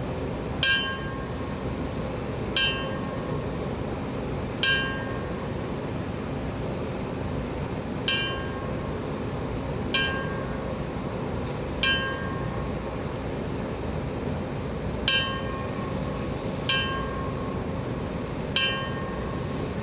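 Fire bell struck nine times in three groups of three, each strike ringing briefly before the next: the fire service's last alarm, rung for firefighters who have answered their last call.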